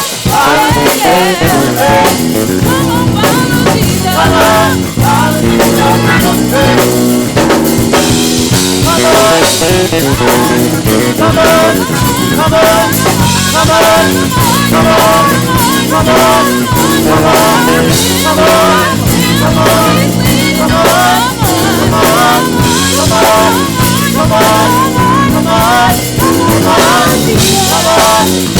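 Live gospel church band playing, driven by a drum kit with snare and bass drum hits, over sustained pitched parts.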